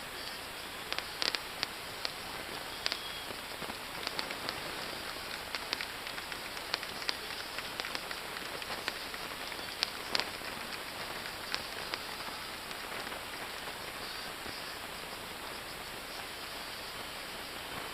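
Fireworks display: a steady crackling hiss with many scattered sharp pops, the pops thinning out after about twelve seconds.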